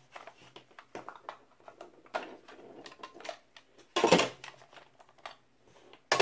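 Hard plastic clicking and snapping as the clip-on cover is pried off an empty continuous ink supply (CISS) ink tank, with small clicks throughout and a louder snap about four seconds in and another at the end.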